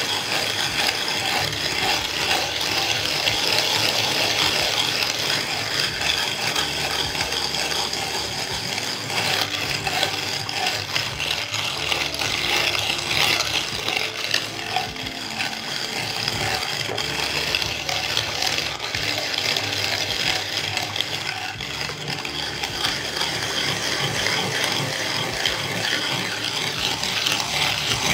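Dampened wooden float rubbed back and forth over fresh Sika MonoTop 615 cement repair mortar, a steady gritty scraping. The mortar has begun to stiffen, and this floating flattens the thick repair coat ready for the thin finishing layer.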